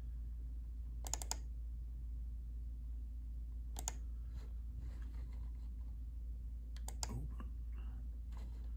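Short, faint clicks of a computer pointer selecting files on a MacBook Pro: a quick cluster about a second in, a single click near four seconds and a pair around seven seconds, over a steady low hum.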